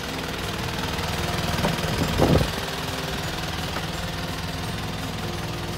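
Toyota Dyna truck engine idling steadily, with a single loud thump a little over two seconds in.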